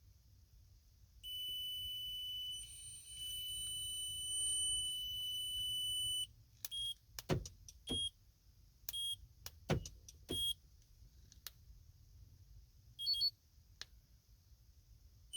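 Remote-start system beeping: one high electronic tone held for about five seconds, then a string of short chirps at the same pitch with a few sharp clicks between them. The system is refusing to start the 2015 Honda CR-V and signalling that it thinks the trunk is open.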